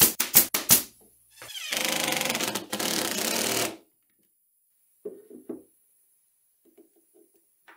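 A Ridgid pin nailer fires a quick series of sharp shots, pinning plywood parts together. About a second and a half in, a DeWalt cordless drill runs steadily for a couple of seconds, driving a screw into the plywood. A few faint taps follow.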